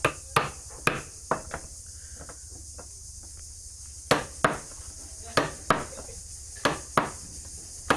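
Mallet striking a wood-carving chisel, cutting a design into wooden furniture: about a dozen sharp knocks, mostly in quick pairs, with a pause of about two seconds after the first handful.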